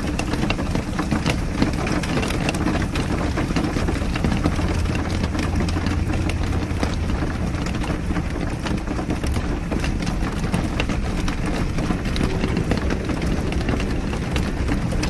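Car driving in the rain: a steady low engine and road rumble with many small, irregular ticks of raindrops on top.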